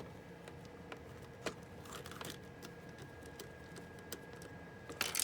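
Light, scattered clicks and taps of small laptop parts and screws being handled during reassembly, with a sharper click about one and a half seconds in and a quick cluster of clicks near the end.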